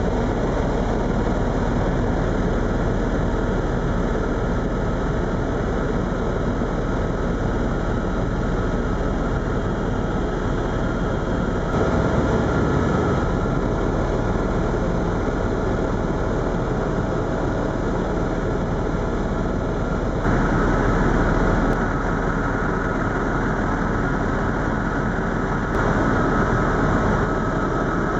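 Steady drone of an Eurocopter EC130 Eco-Star helicopter's turbine and rotors heard inside the cabin in cruise, with small jumps in level a few times.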